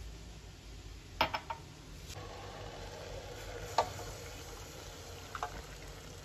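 Fine dry grains poured from a small glass into a plastic tub, with a few light clicks of glass against plastic about a second in, followed by a soft steady pouring sound and further single clicks.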